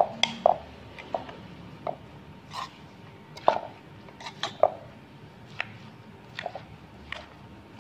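Spoon and pestle knocking and scraping against a clay mortar while tossing shredded salad: irregular short clicks and knocks, about one or two a second.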